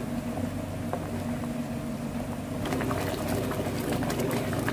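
Thick vegetable rice porridge bubbling and popping in a frying pan as it comes to the boil, stirred with a wooden spatula. The pops grow much denser about two and a half seconds in, over a steady low hum.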